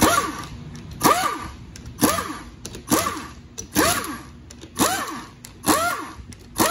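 Pistol-grip air tool spinning valve-body bolts out of a GM 4L60-E automatic transmission: about seven short bursts roughly a second apart, each rising then falling in pitch as the air motor spins up and winds down, with a hiss of air.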